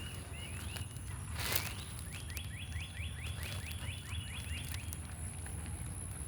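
A songbird singing a quick trill of about ten short, downward-sweeping notes, with a few scattered chirps before it. A brief scuffing noise comes about a second and a half in, over a steady low outdoor rumble.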